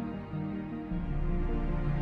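Background music: slow, held notes, with a deeper bass note coming in about a second in.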